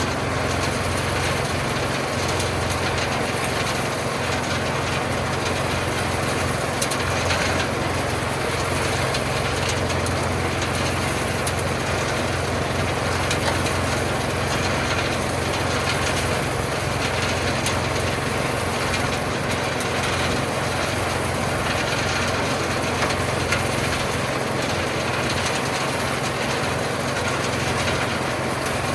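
Small engine running steadily at a constant speed on a trommel wash plant, under a constant dense noise.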